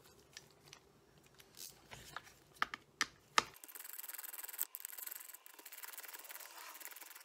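A few sharp clicks of hand and tool on the plastic fuel supply module housing. About halfway through, a steady, fast, scratchy rubbing starts as the top cap is worked loose and lifted off the housing.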